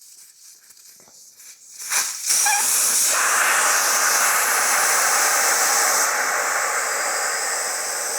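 A few faint clicks at the tire valve, then about two seconds in a loud, steady hiss of air escaping from a motorcycle tire through the valve stem with its core removed, easing slightly as the tire deflates.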